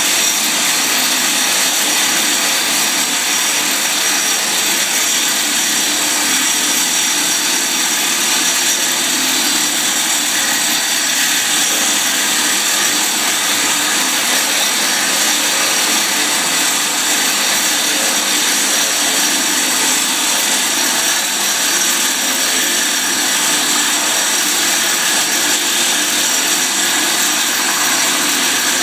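Steady, unchanging machine whir with a hissy top end, from the motor-driven rig running a dry blade-pitch test on a Kaplan turbine hub.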